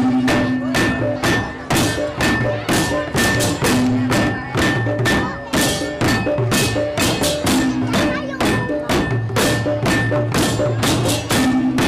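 Balinese tek-tekan music: wooden and bamboo clappers and slit bells (okokan/pentungan) beaten in a fast, steady pulse together with gamelan drums, gongs and cymbals. A deeper ringing gong note comes back about every four seconds.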